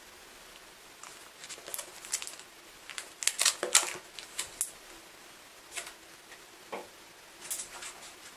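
Paperback book handled and laid on top of a stack of books on a kitchen scale: a run of small rustles, taps and clicks, loudest about three to four seconds in, with a few more near the end.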